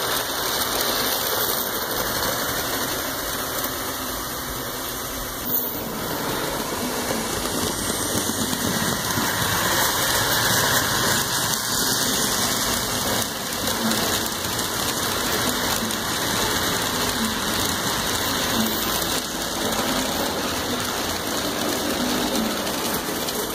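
HO scale model train running along the track: a steady, noisy whir of the locomotive's motor and wheels on the rails, with a brief click about five and a half seconds in.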